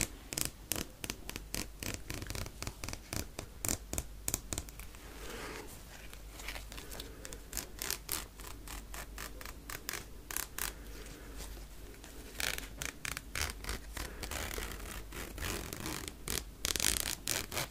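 Separating jacket zipper handled close to the microphone: rapid clicks of the teeth and slider, with a few longer rasping runs of the slider along the teeth, the loudest near the end.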